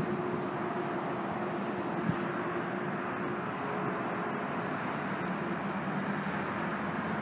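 Steady wash of road traffic and bus engine noise, with a faint steady drone that weakens about halfway through and a single light knock about two seconds in.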